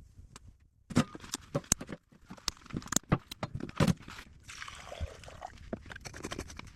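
Irregular sharp knocks and clacks, several close together at times, with a rustling swish a little past the middle.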